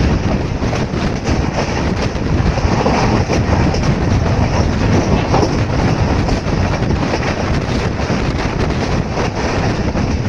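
Passenger train running along the track at speed: a steady rumble with a quick run of wheel clicks over the rail joints, heard from on board with rushing air on the microphone.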